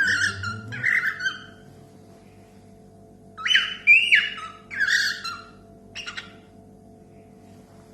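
A pet bird calling in two bursts of short whistled chirps and squawks with quick pitch glides, the first right at the start and the second about three seconds in. A few brief clicks follow about six seconds in.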